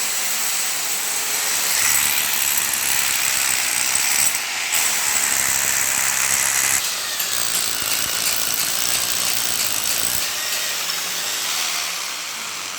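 Electric concrete drill's brushed motor running steadily with a high whine, its carbon brushes sparking blue at the commutator. The whine eases off a little near the end.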